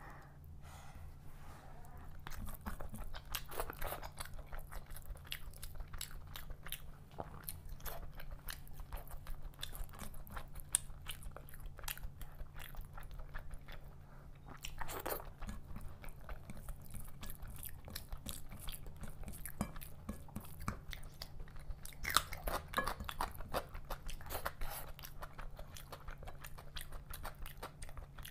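Close-miked chewing and mouth smacking of someone eating fish curry and rice, with a steady low hum underneath.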